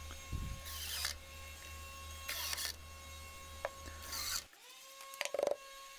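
Cordless Makita impact driver driving screws into a pine cover cap, in three short bursts about a second and a half apart, with a briefer burst near the end.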